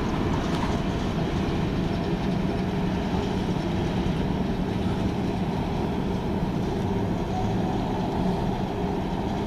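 CSX mixed freight train's covered hoppers and tank cars rolling past, a steady rumble of steel wheels on rail.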